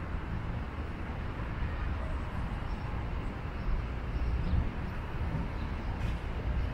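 Wind buffeting the microphone: an uneven low rumble over steady outdoor background noise.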